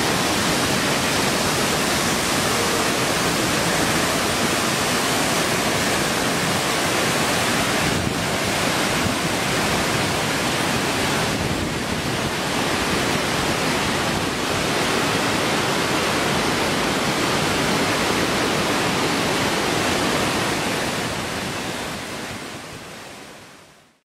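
Waterfall rushing steadily as it plunges into a pool and spills over a low weir, fading out over the last few seconds.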